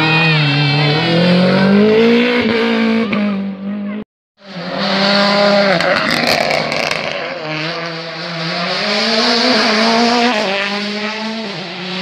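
Two rally cars at full throttle. A small red hatchback rally car accelerates out of a hairpin, its engine pitch climbing, until a sudden cut about four seconds in; then a Ford Fiesta rally car passes at speed, its engine rising and dropping through several gear changes.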